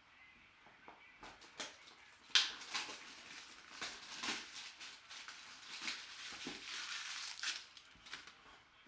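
Clear plastic shrink wrap being torn and crinkled off a cardboard trading-card box, a dense run of crackles with the sharpest snap about two and a half seconds in.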